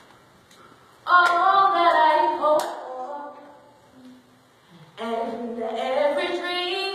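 Women's voices singing a slow gospel song in two phrases, one starting about a second in and the other about five seconds in, with a quiet gap between. A couple of sharp hand claps fall during the first phrase.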